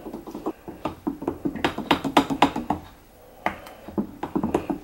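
Spatula stirring juice in a glass pitcher, tapping and clinking against the glass about five times a second, with a short lull about three seconds in.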